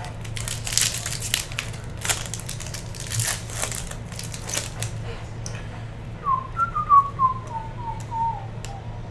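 Foil trading-card pack wrapper being torn open and crinkled, then a person whistling a short tune that steps downward over several notes, starting about six seconds in.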